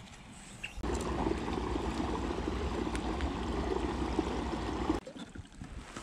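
Kayak under way on its bow-mounted Motorguide Xi3 electric trolling motor: water rushing along the hull over a steady low hum. It starts abruptly about a second in and cuts off abruptly about five seconds in.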